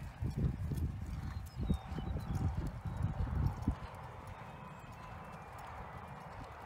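A 2009 red roan mare's hooves thudding on arena sand at the lope, about three dull beats a second. The hoofbeats fade out a little more than halfway through.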